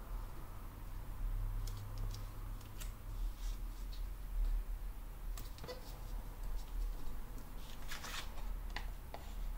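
Light paper rustles and small clicks as paper stickers are handled and pressed onto planner pages, then a quick run of scissors snips cutting paper about eight seconds in, over a low steady hum.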